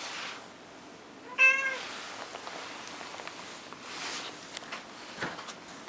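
A domestic cat meows once, a short call about a second in. Soft rustling and a few light taps follow.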